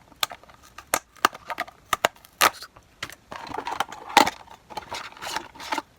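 Hands opening a small cardboard blind box: a run of sharp clicks and taps, then rustling and tearing of the packaging through the second half.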